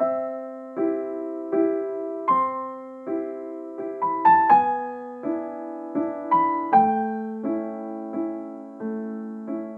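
Gentle piano music: chords struck about every three-quarters of a second, each ringing and fading before the next, with a few quicker notes near the middle.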